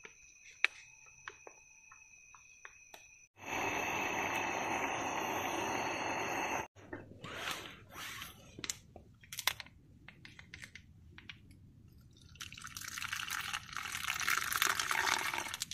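Liquid being poured and dripping, with scattered clicks and knocks of handling. A loud steady hiss starts abruptly about three and a half seconds in and stops about three seconds later.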